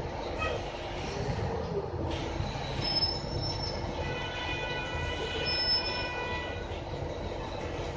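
Interior of a moving RTS transit bus: steady engine and road rumble with rattles. High-pitched metallic squealing comes in about three seconds in and again, with several tones at once, from about four to seven seconds in.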